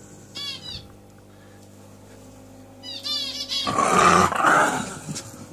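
Small white dog guarding a toy in its mouth, giving two short spells of high, wavering whining cries, then a louder, rougher grumble for over a second when a hand touches it.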